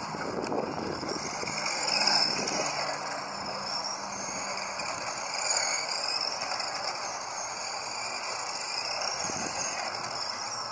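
RC model cars racing on a dirt oval, their motors whining up and down in pitch as they accelerate and slow around the track.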